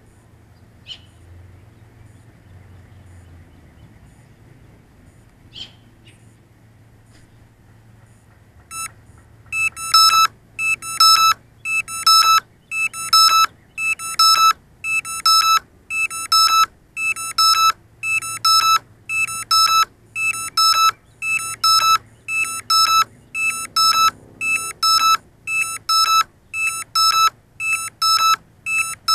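Electronic beeper on a downed drone starting about a third of the way in, short high beeps on one pitch at about two a second, the pattern of a lost-model alarm. Before it, a faint low hum and two brief high chirps.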